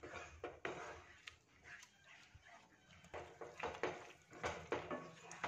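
Wooden spatula stirring a thick curd-and-pea masala in a non-stick kadai: quick, irregular scraping strokes against the pan, with a short lull about halfway. It is stirred fast so the yogurt does not split.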